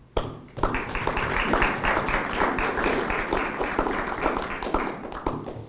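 Audience applauding: a few scattered claps, then full applause from about half a second in that fades out shortly before the end.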